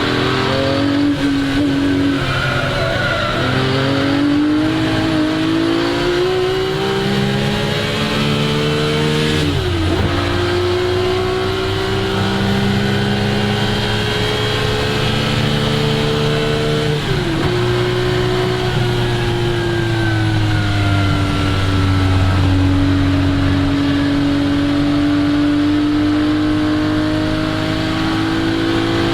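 1961 Ferrari 250 GT SWB's Colombo V12 engine pulling hard on track, revs climbing steadily through the gears, with a sharp drop in pitch at the upshifts about ten seconds and seventeen seconds in. After the second shift the revs ease off for a few seconds, then climb again near the end.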